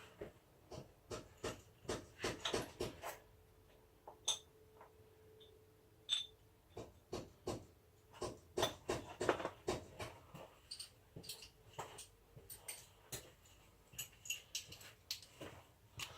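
Irregular clicks, taps and small metallic clinks of hand tools working on a motorcycle's gear-change shaft fittings, a few of them ringing briefly.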